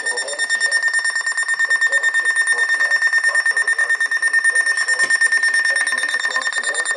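Weather alert radio's built-in alarm beeping: one high electronic tone pulsing rapidly and evenly. It signals that the radio has received a weather alert.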